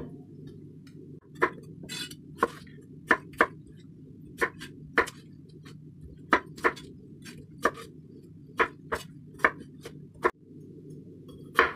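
Kitchen knife cutting peeled potatoes into chunks on a wooden cutting board: sharp knocks of the blade meeting the board, irregular, one or two a second.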